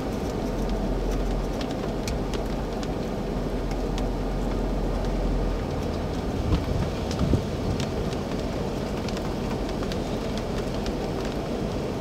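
Scattered raindrops ticking against a vehicle's windshield, heard from inside the vehicle over a steady low rumble, with a couple of louder thumps about six and seven seconds in.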